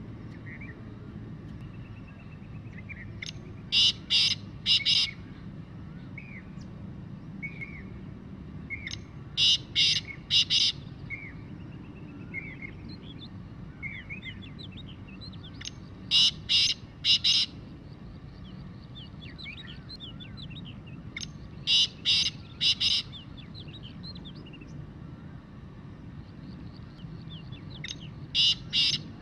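Black francolin calling: a quick phrase of three or four loud notes, repeated about every six seconds. Faint twittering of other birds sits beneath it.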